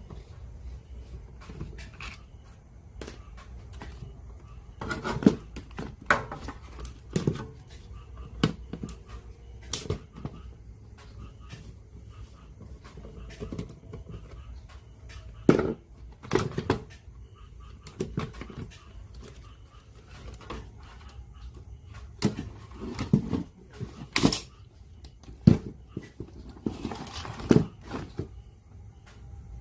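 Irregular knocks and clicks of tools and plastic parts being handled on a workbench while a radio cassette player is taken apart, some knocks much louder than others, over a steady low hum.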